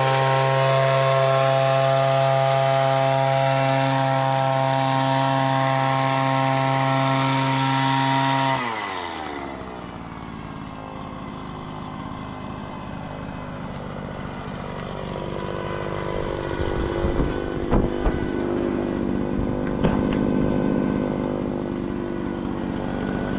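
Echo PB-400E backpack blower's two-stroke engine running at full throttle with a steady high whine, on a test run after repairs. About a third of the way in it is throttled back: the pitch drops quickly and it settles to a rougher, lower idle, with a few knocks near the end.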